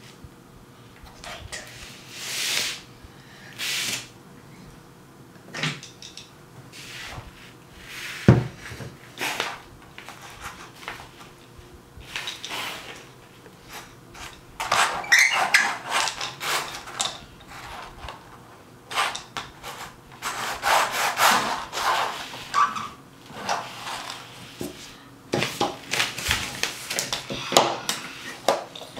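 A plastic toy train engine pushed and rubbed back and forth over a paint-covered paper canvas on a table, in repeated bursts of scraping and rubbing, with an occasional knock of the toy against the tabletop.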